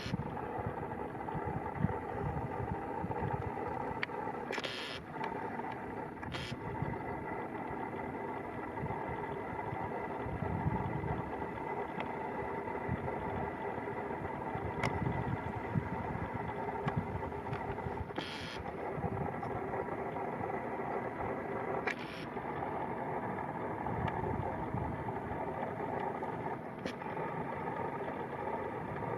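Large diesel harvest machinery running steadily, with a constant mechanical whine over a low rumble. A few short, sharp knocks stand out, about five, six, eighteen and twenty-two seconds in.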